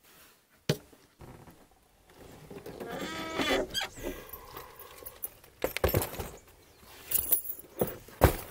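A backpack is handled and loaded into a car's rear cargo area: several thumps and knocks from about five and a half seconds on, with a sharp click under a second in and a short drawn-out pitched cry, like a bleat, about three seconds in.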